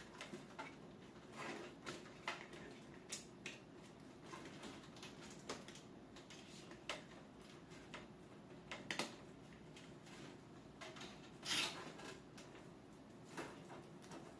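Faint handling noise: irregular small clicks, taps and short rustles, the longest rustle about eleven and a half seconds in, over a low steady hum.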